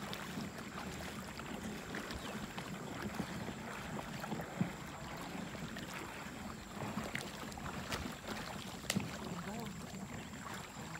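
River water sloshing and splashing as people wade through it, with a few sharp clicks, the loudest late on.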